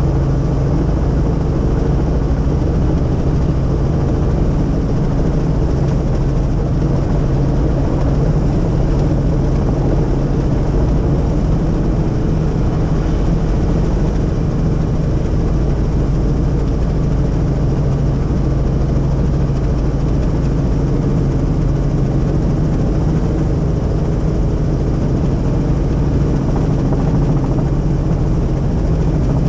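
Helicopter in steady flight heard from inside the cabin: a loud, constant drone of rotor and turbine with a low hum.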